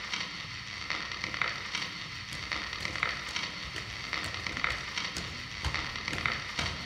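Dance soundtrack of crackling, rain-like static noise with a soft regular pulse about twice a second.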